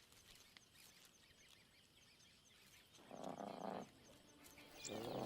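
Faint bush ambience with a rapid, steady high chirping, broken by two short, low animal calls: one about three seconds in and another near the end.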